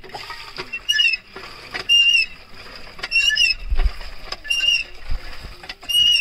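Hand pump being worked by hand, its handle squeaking once per stroke about every second and a quarter, while water splashes steadily into a steel bucket.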